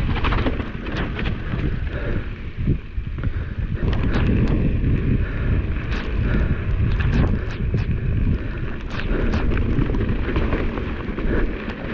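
Santa Cruz Hightower mountain bike riding down a trail: heavy wind rumble on the bike-mounted or helmet-mounted microphone, with frequent clicks and rattles from the bike over the ground.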